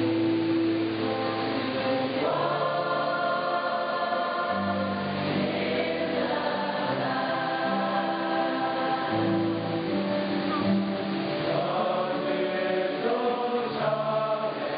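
A large mixed choir of men's and women's voices singing a slow hymn in harmony, with long held notes.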